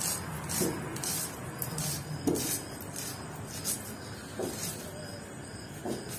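A red onion being sliced against a boti, a fixed curved blade on a wooden block: crisp cutting strokes at an irregular pace of roughly two a second, with a few duller knocks among them.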